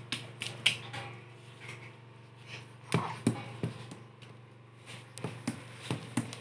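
A baby's bare feet kicking and tapping on a tiled floor: irregular sharp taps in small clusters, over a low steady hum.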